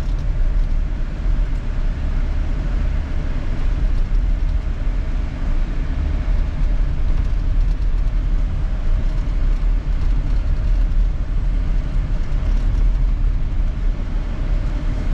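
Steady road and engine noise heard from inside a moving car, a low rumble with no change in pace.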